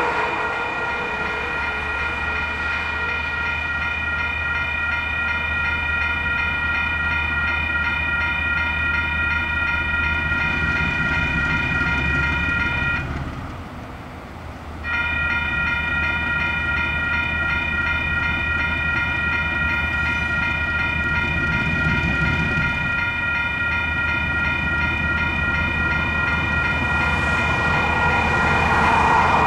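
Level crossing warning bells ringing steadily, cutting out for about two seconds midway. Under them runs the low rumble of the freight train's diesel locomotives, growing louder near the end as they draw close.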